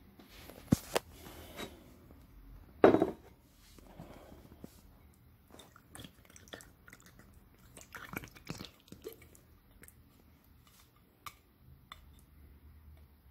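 Canned pasta in thick tomato and meat sauce sliding and plopping out of a metal can onto a plate, with knocks and clicks of the can and plate on the table; the loudest is a single thump about three seconds in.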